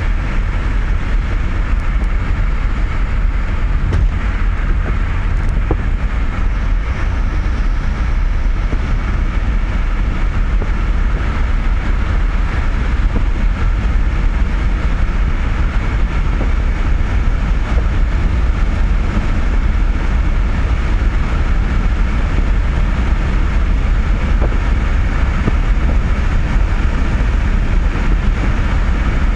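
Steady loud rumble of tyre, wind and drivetrain noise inside a car's cabin driving fast, at roughly 120 to 145 km/h and gaining speed.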